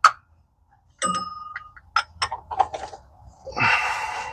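Steel hand tools (socket extensions and a breaker bar) knocking together: a ringing metal clang about a second in, a few sharp clicks, and a short rushing scrape near the end.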